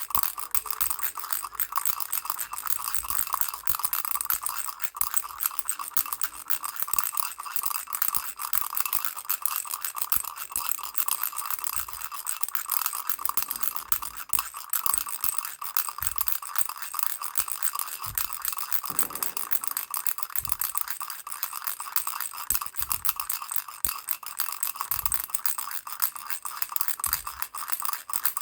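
Baby rattle shaken without a break: a dense, fast rattling with a steady ringing tone, and a few soft low thumps now and then.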